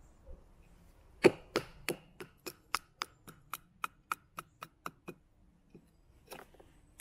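Taxus Wisdom bushcraft knife chopping into wood: a quick run of about fifteen strikes, roughly four a second, the first loudest and the rest weakening, then one more strike near the end.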